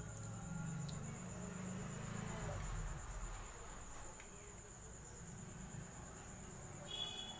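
A cricket calling, a steady high-pitched trill that goes on without a break. Near the end there is a short ringing clink.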